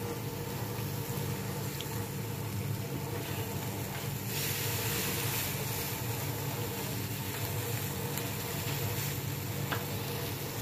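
Marinated chicken pieces sizzling steadily as they fry in an oiled pan, over a steady low hum. The sizzle swells briefly about four seconds in.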